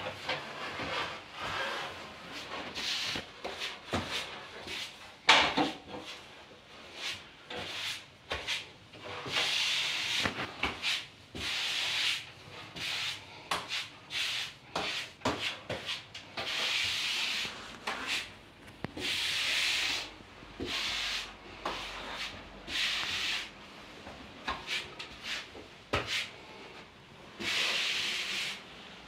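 Rubber grout float scraping across wall tiles in repeated sweeping strokes, each about a second long, working grout into the tile joints. Sharp knocks come now and then between strokes.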